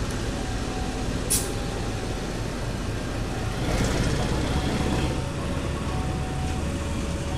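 KAI CC 203 (GE U20C) diesel-electric locomotive passing close by at slow speed, its diesel engine running over the rumble of wheels on rails. There is a brief sharp noise about a second in, and the sound swells for about a second near the middle.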